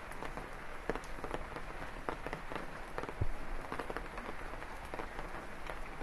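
Rain falling: a steady hiss with many irregular, close drops tapping on wet leaves, one heavier drop landing about three seconds in.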